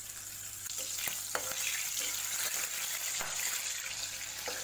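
Slit green chillies sizzling steadily in hot oil in a kadhai, with a few knocks of a slotted spoon against the pan as they are turned.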